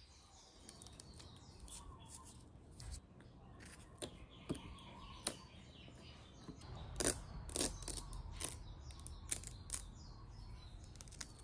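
Faint crackling and ticking of a sticker decal and its clear transfer film being handled and peeled off a plastic case lid, as a scatter of short clicks that grows busier in the second half.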